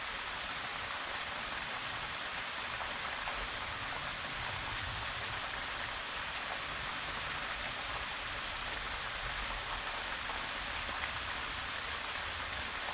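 Steady rushing hiss of a waterfall pouring into a pool.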